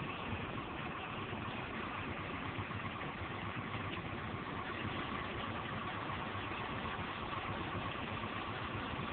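Steady engine and road noise of a passenger vehicle, heard from inside the cabin, with a constant hum near the middle of the range.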